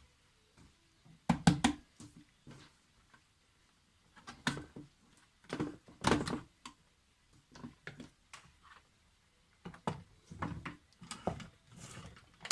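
A series of separate knocks and thunks from a kitchen food chopper's bowl and lid being handled after chopping, the loudest about a second and a half in and around six seconds in.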